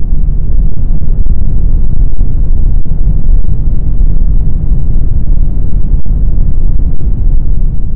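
Audio sonification of NANOGrav's pulsar-timing gravitational-wave signal: a loud, steady, deep rumbling noise, strongest in the bass.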